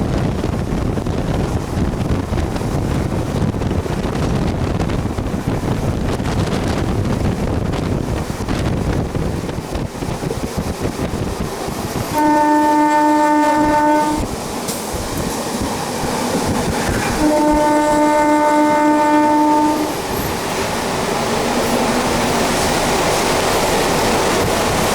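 MEMU electric multiple-unit train running along the track with a steady rumble, its horn sounding twice: a blast of about two seconds roughly twelve seconds in and a slightly longer one about five seconds later.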